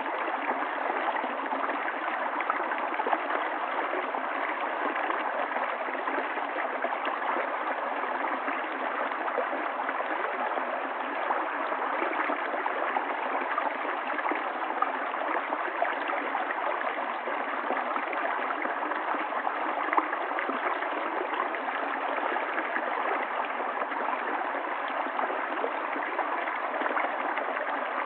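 River water flowing and gurgling over rocks, a steady rush with many small splashes.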